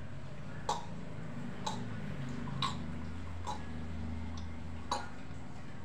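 Sharp crunches of a hard stone-like piece being bitten and chewed, about one crunch a second, over a steady low hum.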